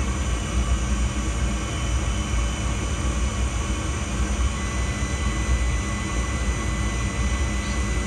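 Draft inducer motor of a Rheem gas package unit running with a steady low hum. It is drawing enough draft to hold the pressure switch closed.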